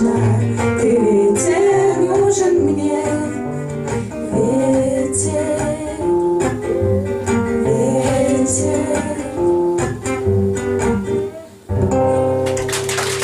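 Bard song sung by two women to acoustic guitar, reaching its close. The music drops out briefly near the end, then ends on a final held guitar chord.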